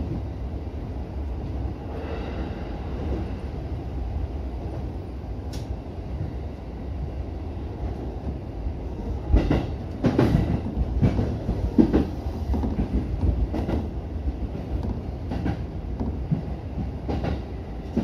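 JR East E231-series electric commuter train running, heard from inside the cab: a steady low rumble of wheels on rail. From about halfway through, the wheels clack sharply over track joints and pointwork, several knocks each second or so.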